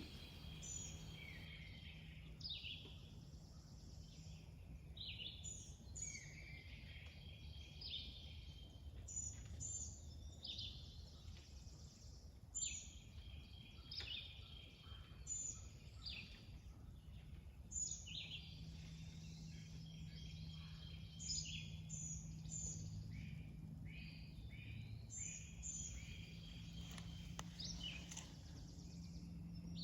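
Faint birdsong, many short chirps and whistles from several birds, over a low steady hum.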